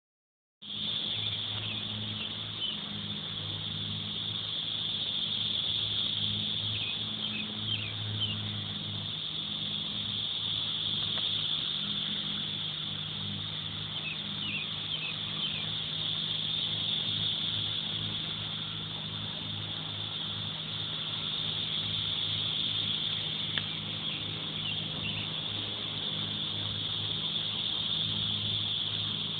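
A chorus of cicadas buzzing very loudly in one continuous high-pitched drone that slowly swells and eases, with a fainter low hum underneath.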